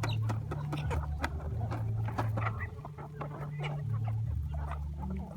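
Chickens clucking, with many short clicks and taps among the calls.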